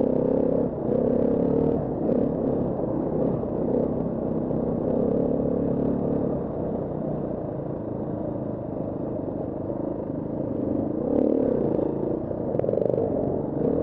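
KTM 350 Six Days enduro bike's single-cylinder four-stroke engine under way, its pitch rising and falling with throttle and gear changes, easing off through the middle before revving up again. A few sharp knocks and clatter near the end.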